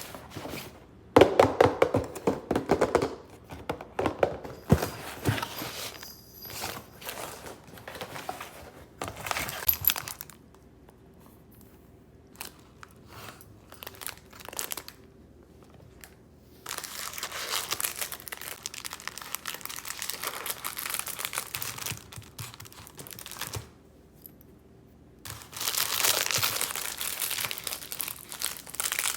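Crinkling, rustling and clicking of things being handled while cooking, in irregular bursts with quiet pauses, denser and steadier for several seconds at a time in the second half.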